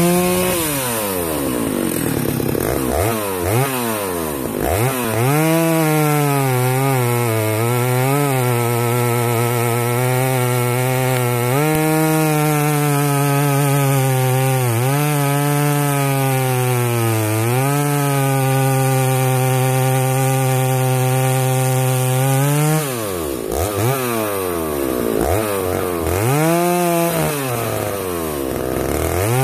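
Stihl 075 two-stroke chainsaw, ported with a timing bump and its rev limiter disabled, being revved: a run of quick throttle blips, then long stretches held at high revs with brief dips, then more blips near the end. The high revs are held without the limiter cutting in.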